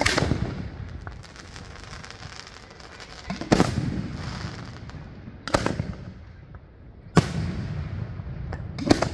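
Aerial fireworks shells bursting: a sharp bang right at the start, then more about every two seconds, with a quick double bang near the end, each trailing off in a rolling rumble.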